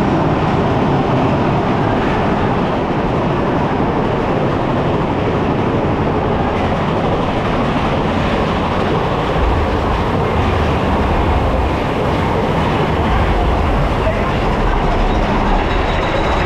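Big Thunder Mountain Railroad mine-train roller coaster running along its track, heard from aboard the train: a steady, loud rumble and clatter of the wheels. A deeper low rumble builds up about ten seconds in and again near the end.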